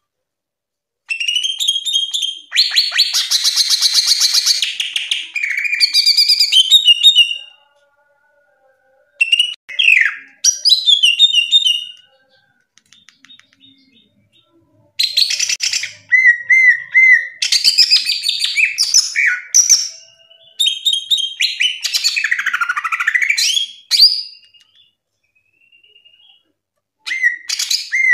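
Green leafbird (cucak ijo) singing loud, varied song in bursts: rapid chirps and trills, a harsh rattling stretch a few seconds in, and whistled and swooping notes, with short pauses between phrases.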